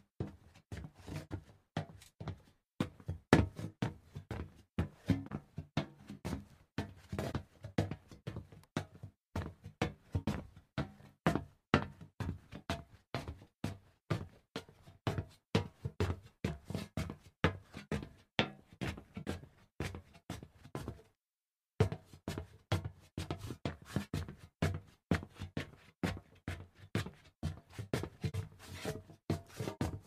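Footsteps on hollow metal: quick, uneven knocking steps, each with a low ring. They stop for about a second roughly two-thirds of the way through, then go on.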